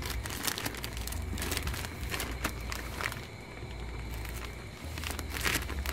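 Plastic courier pouch crinkling and crackling as hands handle and open it, with irregular crackles that thin out for a moment in the middle, over a low rumble.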